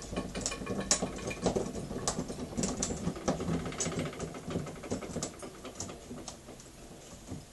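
Model steam engine (Märklin 4097 engine unit) running on steam from a homemade boiler, driving a rope haulage winch: a rapid, irregular clatter of small metallic clicks and knocks.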